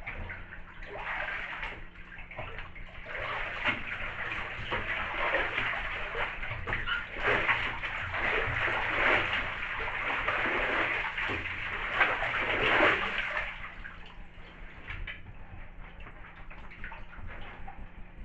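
Booted feet wading and treading in a full bathtub, the water sloshing and splashing around leather work boots for about thirteen seconds, then dying down to quieter sloshing.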